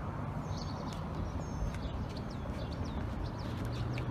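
Small birds chirping with short, quick sweeping calls over a steady low rumble of outdoor noise; a low steady hum comes in near the end.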